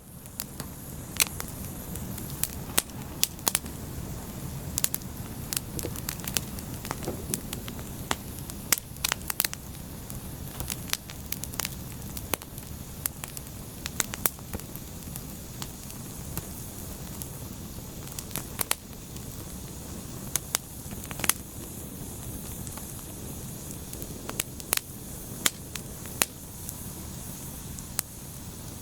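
Wood fire burning with a steady low rumble and hiss, and frequent sharp, irregular crackles and pops of the burning wood.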